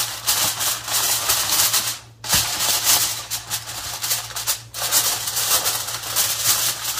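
Aluminium foil crinkling as it is crimped by hand around the rim of a disposable aluminium pan, in bursts with two short pauses, about two seconds in and again after four and a half seconds.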